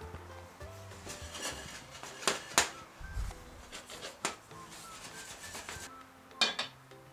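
A utensil stirring popcorn kernels and sugar in a nonstick pot, scraping and knocking against the pot a few times. About six seconds in, a glass lid clatters onto the pot. Soft background music plays throughout.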